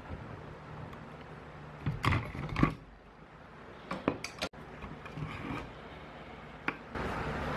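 Handling sounds of a circuit board being moved on a cutting mat while a resonant capacitor is pulled off it: a few scattered knocks and clicks over a low steady hum.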